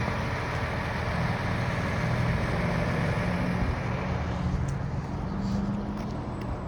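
Fire engine idling, a steady low engine drone.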